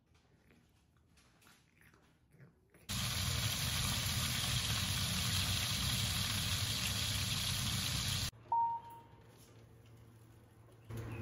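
Chicken thighs sizzling steadily in hot grease in a cast-iron grill pan, starting about three seconds in and cutting off abruptly a few seconds later. Then a single short beep followed by a low steady hum.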